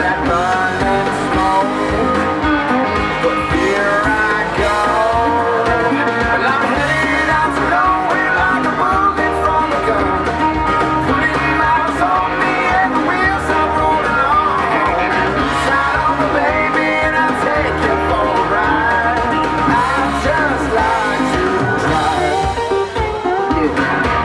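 A song with a singing voice, guitar and a steady, driving beat, in a rock-and-roll/country style.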